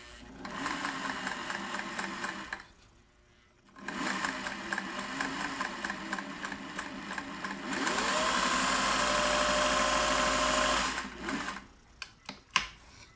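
Singer 401A vintage sewing machine stitching a straight test seam through cotton fabric, its needle going in a quick steady rhythm. It runs in three spells: the last one speeds up and is louder, then it stops. A few sharp clicks come near the end.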